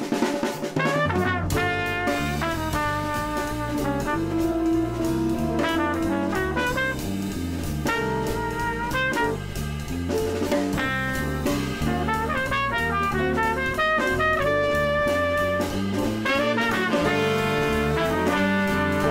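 Background music: a jazz tune with brass over a drum kit and a bass line, the bass coming in about a second and a half in.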